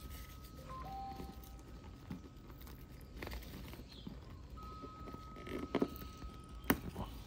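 Handling noise of hands rubbing and pressing PVC boat-tube fabric and thin plastic film while a glued patch is worked into place, with a few sharp taps. A thin, steady whistle-like tone sounds twice, near the start and again for about two seconds later on.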